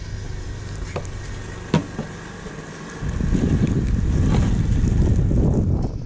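Blizzard wind buffeting the microphone as a low rumble, swelling into a strong gust about halfway through. A couple of short sharp knocks early on.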